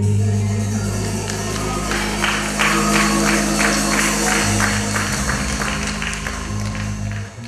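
Gospel church music: a low sustained chord from the band, with a steady beat of tambourine-like percussion hits, about three a second, through the middle. The music dies away near the end.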